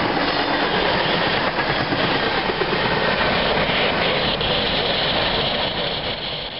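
A freight train's cars rolling past on the rails, a loud steady rushing rumble of wheels and cars. It starts to fade away near the end as the tail end of the train moves off.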